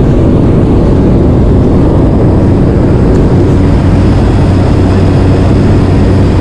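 Steady, loud engine and propeller noise heard inside the cabin of a small skydiving jump plane: a constant low hum under an even rushing noise.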